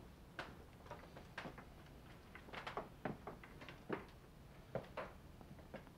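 Faint, irregular light taps and clicks, a dozen or so, over quiet room tone.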